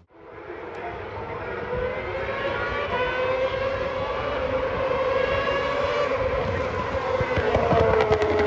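Racing superbike engines at high revs, growing steadily louder as the bikes approach, their pitch easing down in the last few seconds with crackles near the end.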